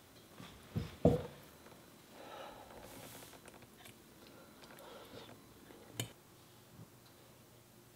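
A person eating from a plate with a metal fork: two soft knocks about a second in and a sharp click around six seconds in, with quiet chewing between.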